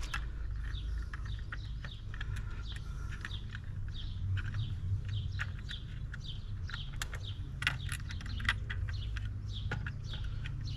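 Small birds chirping over and over, a few short chirps a second, over a steady low hum. A handful of sharp clicks come in the second half from hands working at the sand filter's valve lid.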